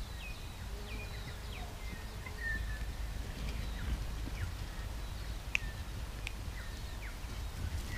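Small birds chirping in short scattered calls over a steady low rumble of wind on the microphone.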